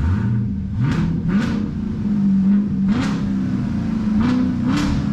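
A 2019 Camaro SS 1LE's 6.2-litre LT1 V8 is revved from idle: the note climbs about a second in, then is blipped up sharply four or five more times with the revs held raised between blips. The engine is warming up on its first heat cycle after the rebuild.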